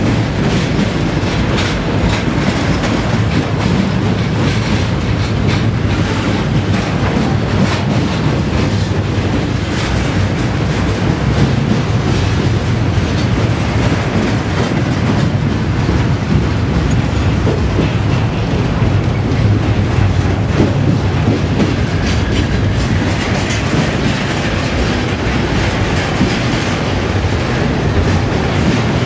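Double-stack intermodal train's container well cars rolling past at close range: a steady rumble of steel wheels on rail with irregular clacking of the wheels.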